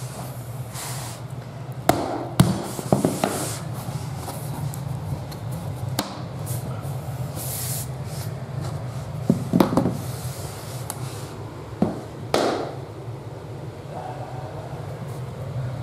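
Handling noise while laying laminate flooring: scattered light knocks and taps with brief brushing sounds, over a steady low hum.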